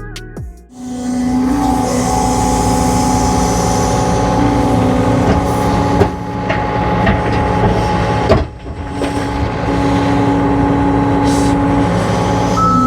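John Deere skid steer's diesel engine running hard with a steady whine, with a couple of sharp clanks partway through. A backup alarm starts beeping near the end.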